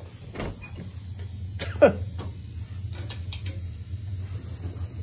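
Knocks and clicks of cabinet or closet doors being handled, the loudest just under two seconds in with a short sound falling in pitch, over a steady low hum.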